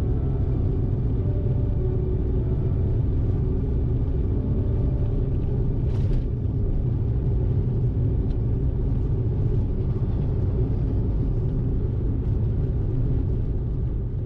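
A car driving: a steady low rumble of engine and road noise, with one short tick about six seconds in.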